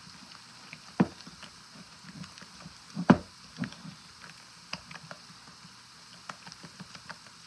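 Wooden spoon stirring a thick, sticky peanut butter and jelly mixture in a plastic bowl: irregular soft knocks and scrapes of the spoon against the bowl, the loudest about one second and three seconds in.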